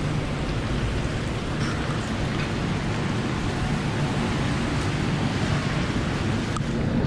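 Steady rain: an even hiss over a low rumble, with a few faint ticks.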